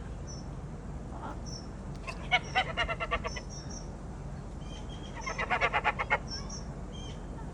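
Birds calling: two bouts of fast, repeated calls, one a couple of seconds in and one about five seconds in, with short high chirps of small birds throughout.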